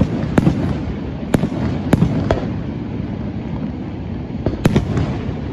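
Aerial fireworks bursting with sharp bangs: about five in the first two and a half seconds, then two more in quick succession near the end, over a steady low rushing noise.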